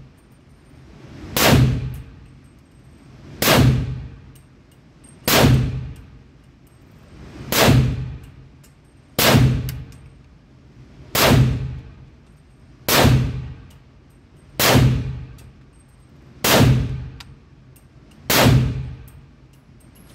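Ten gunshots from an AR-style pistol fitted with a muzzle brake, fired slowly at about one shot every two seconds, each sharp report ringing briefly in an indoor firing range.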